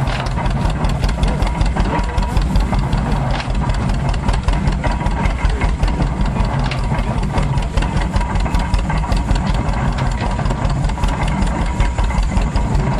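An old farm engine running steadily with an even, rapid firing beat, powering an antique belt-driven stationary straw baler.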